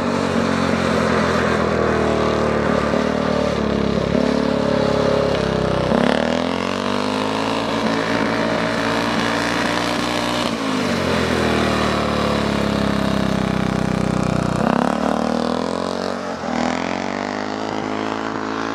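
Speedway motorcycle's single-cylinder engine running hard on ice, its pitch climbing sharply about six seconds in, dropping back around ten seconds and climbing again near fifteen seconds as the rider opens and closes the throttle.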